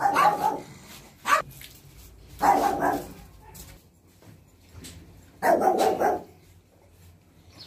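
A dog barking three times, each bark about half a second long and a few seconds apart, with one brief sharp sound about a second in.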